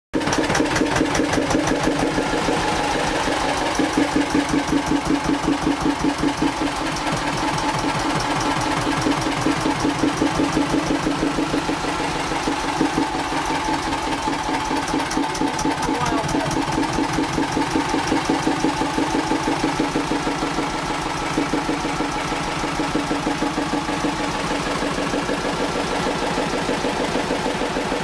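Narrowboat's inboard engine idling with a steady, even chugging beat.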